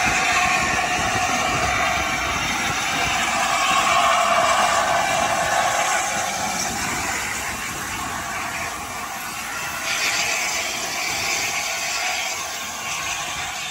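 LNER Class A4 Pacific steam locomotive letting off a steady hiss of steam, with a brighter hiss joining about ten seconds in.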